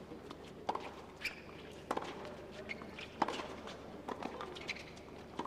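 Tennis doubles rally: sharp pops of racket strings hitting the ball and the ball bouncing on the hard court, about six hits at uneven spacing, with a low background hum.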